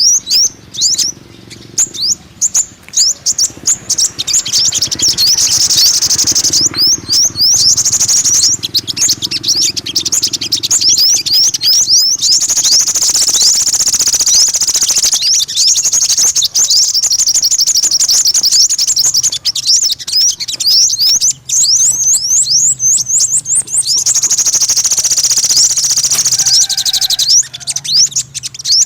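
Sunbird song: rapid, high-pitched twittering of quick chirps and sweeping trills, broken by short gaps in the first few seconds and then running almost without pause.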